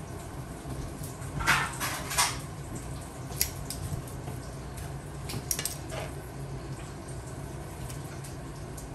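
Metal tongs clinking against a frying pan while sautéed spinach is lifted out and laid on a plate. There is a cluster of clatters about a second and a half in, a single click a little later, and more clinks around five to six seconds, over a steady low hum.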